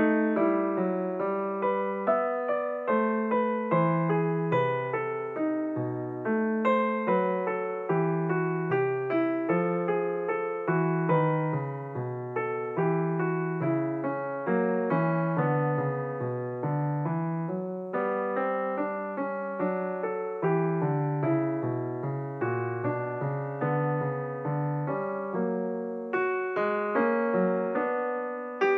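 Solo piano music, a steady flow of struck notes with each one dying away.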